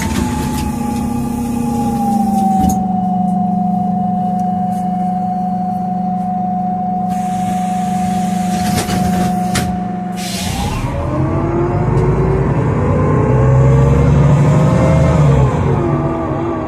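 Inside a Solaris Urbino 12 CNG city bus, its Iveco Cursor 8 gas engine idles with a steady hum while compressed air hisses twice at length. About ten seconds in, the engine note rises as the bus pulls away, then drops near the end as the Voith automatic gearbox shifts up.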